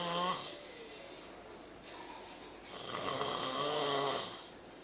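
A man snoring. One long, loud snore trails off just after the start, and another runs from a little under three seconds in until near the end, each more than a second long.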